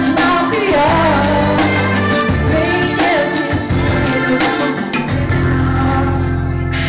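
Live amateur band performance: a young woman sings over her electric guitar and a keyboard. Her vocal line stops about halfway through, and the band then holds a sustained chord.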